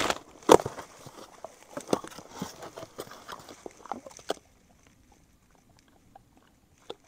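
A cardboard box being opened by hand and its contents pulled out: tearing and crinkling of cardboard and packaging, with one sharp snap about half a second in. The handling stops after about four seconds.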